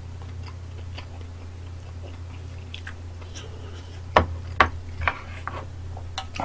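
Eating at a table: quiet chewing, then a few sharp clicks of chopsticks and a wooden spoon knocking against the pan and bowl about four to five seconds in, over a steady low hum.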